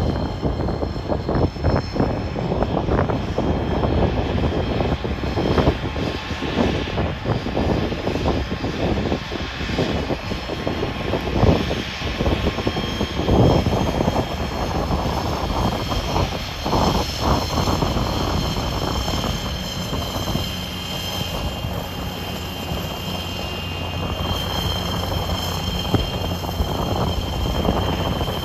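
Embraer ERJ-145 regional jet's rear-mounted turbofan engines whining at taxi power: a steady high whine that grows stronger in the second half, over gusty wind rumble on the microphone.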